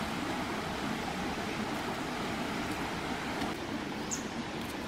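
Steady rushing of river water flowing over rocks, with a few faint ticks and a brief high chirp about four seconds in.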